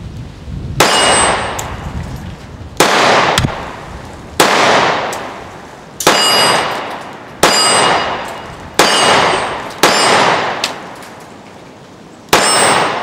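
Ruger SR1911 Officer-Style .45 ACP compact pistol fired eight times in slow fire, roughly one shot every one and a half seconds. Each shot has a long ringing tail that fades over about a second.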